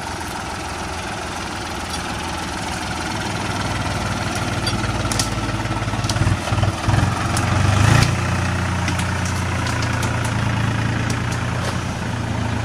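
New Holland 4710 tractor's three-cylinder diesel engine running steadily as the tractor drives through thick brush. The engine note dips and surges between about six and eight seconds in, and a few sharp cracks sound over it.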